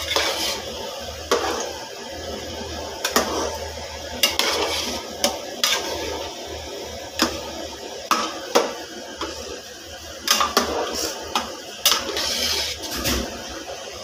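A metal spoon clinking and scraping against a cooking pot in irregular knocks as water is added to a chickpea curry and stirred in. A low steady hum runs underneath.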